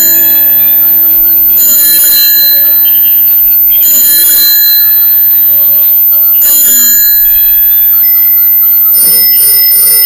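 Electronic sound chip of a battery-powered toy bicycle playing a tinny tune, with a bicycle-bell ring four times, about every two and a half seconds.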